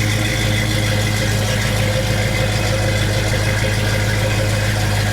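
1965 Ford Mustang's engine idling steadily, an even low hum with no revving.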